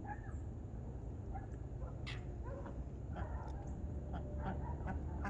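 Border collie whining in short, high-pitched whimpers, several times, over a steady low rumble.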